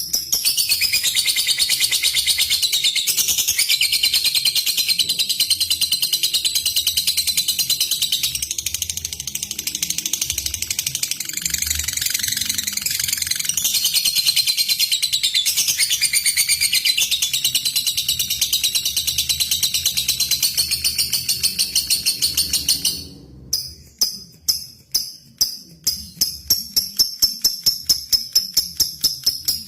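Lovebird giving a long, unbroken high-pitched chattering trill (ngekek) for over twenty seconds. It cuts off abruptly near the end and gives way to a steady run of sharp, evenly spaced ticks (ngetik), a few a second.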